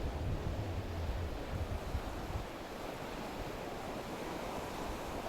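Sea waves washing steadily on the shore, with wind rumbling on the microphone for the first couple of seconds.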